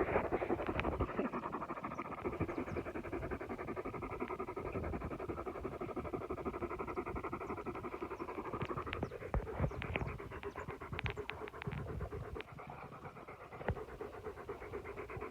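Dogs panting, quick and steady, with a scattering of sharp clicks about ten seconds in.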